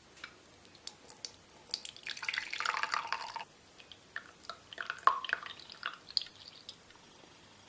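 Milk boiled with chopped onion being strained: a pour of liquid lasting about a second and a half, followed by scattered drips.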